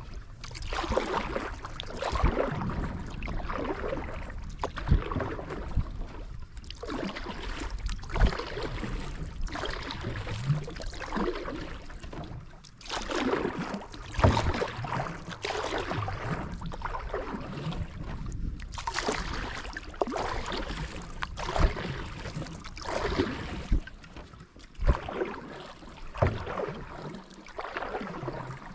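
Canoe paddle strokes in lake water: a swish and splash repeating every two to three seconds, with an occasional sharp knock.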